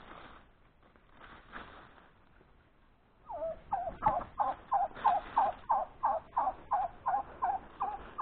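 Domestic fowl calling: starting about three seconds in, a rapid run of about a dozen short, wavering notes, roughly three a second, that carries on to the end.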